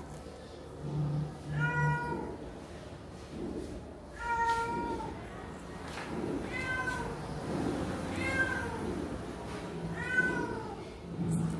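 Persian cat meowing repeatedly: about five short meows, roughly two seconds apart, each rising and then falling in pitch.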